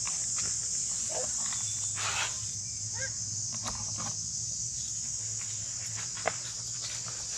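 Steady high drone of insects, with a few short, pitched monkey calls in the first half and a sharp click a little after six seconds.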